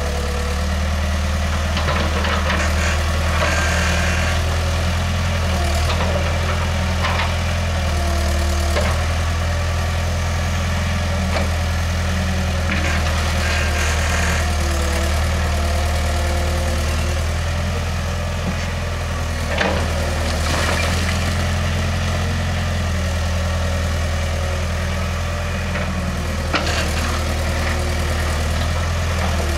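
Wheeled excavator's diesel engine running steadily while its bucket knocks down brick walls, with several crashes and clatters of falling masonry and rubble.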